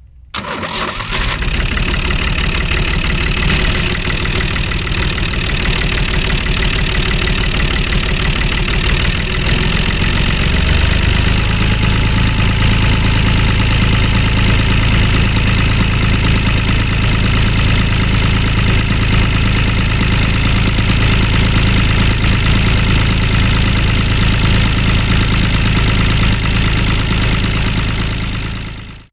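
Tractor engine starting and then running steadily; about ten seconds in, its beat settles into an even, low hum. It cuts off abruptly near the end.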